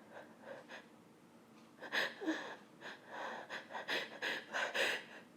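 A woman's pre-sneeze build-up from a pepper tickle as she tries to hold back the sneeze: short gasping inhales and breaths. About two seconds in there is a louder gasp with a brief voiced catch, followed by a run of quick, uneven breaths.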